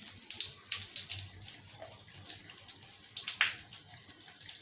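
Tap water running across the floor of a bathtub and trickling into the drain: a steady splashing hiss with a few sharper splashes, the clearest about three and a half seconds in.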